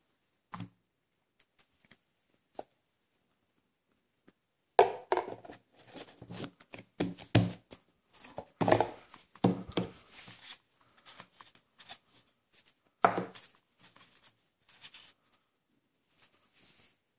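Cardboard packaging handled on a tabletop: a single soft knock near the start, then a run of knocks, scrapes and rustles from about five seconds in, with a last loud knock about thirteen seconds in.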